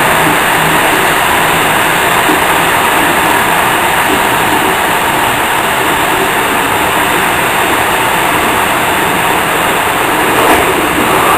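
Steady running noise of an InterCity passenger train's wheels on the rails, heard from inside its last carriage, with one short knock near the end.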